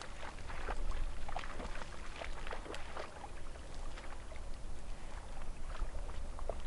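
Shallow stream water splashing and sloshing in irregular bursts, as from wading or grappling with a carp, over a steady low rumble.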